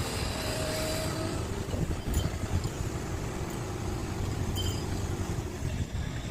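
Large hydraulic excavator (Komatsu PC650LC) running steadily with a deep diesel rumble, with two brief metallic clinks, about two seconds in and again near the middle.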